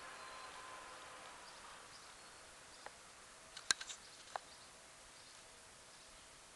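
Quiet garden background with a faint steady hiss and a faint hum that fades out about a second and a half in, then a few sharp clicks close together about three to four and a half seconds in.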